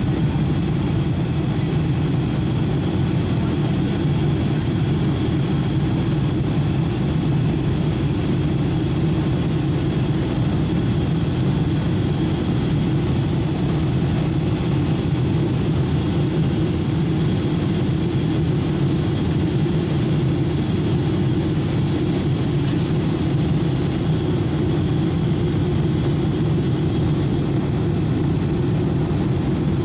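Cabin noise inside a Boeing 757-200 climbing after take-off: a steady low rumble from the jet engines and the airflow over the fuselage, with a faint steady high whine above it.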